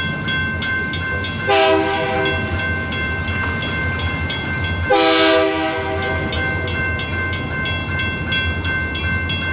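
Grade-crossing warning bell ringing steadily, about three strokes a second, while the gates come down. An approaching locomotive sounds its air horn twice: a short blast about a second and a half in, and a longer, louder blast about five seconds in.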